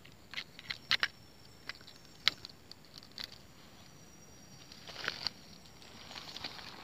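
Quiet outdoor background with a few faint, scattered clicks and ticks, and a thin, faint high-pitched tone that comes in about halfway.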